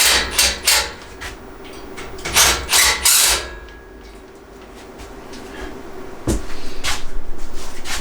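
Metal battery rack parts knocking and clanking as they are handled and fitted: six sharp knocks within the first few seconds, then a longer, busier stretch of uneven clattering from about six seconds in.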